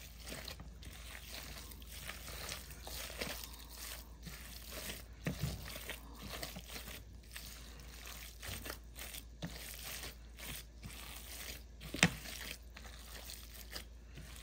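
Gloved hands squeezing and kneading raw ground burger meat mixed with chopped vegetables in a bowl: faint, irregular squelching and wet crackling. A single sharper tap comes about twelve seconds in.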